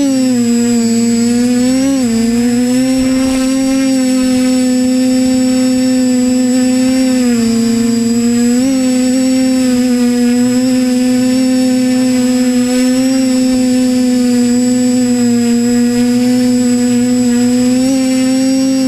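TBS Discovery Pro quadcopter's electric motors and propellers hovering, heard from its onboard camera: a loud, steady buzzing hum that dips briefly in pitch a few times.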